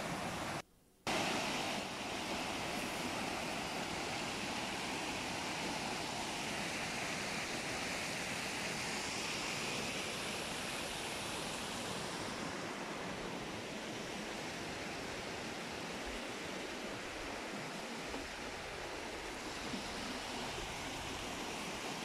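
Small rocky woodland stream rushing over stones: a steady, even rush of water. It cuts out briefly about a second in.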